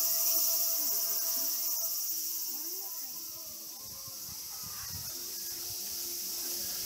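A steady, high-pitched insect chorus, with faint distant voices underneath.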